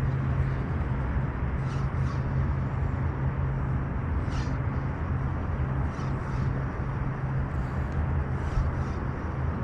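Steady low rumble of distant road traffic, with faint short hisses every second or two.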